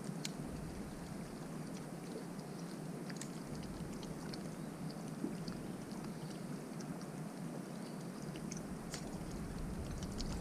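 Quiet on-the-water background in a fishing boat: a steady low hum and wash of water, with scattered light clicks.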